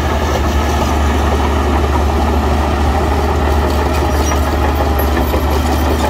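Heavy construction-machine diesel engine running steadily with a deep, even hum.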